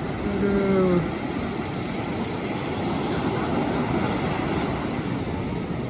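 Steady rushing of wind on the microphone mixed with beach surf.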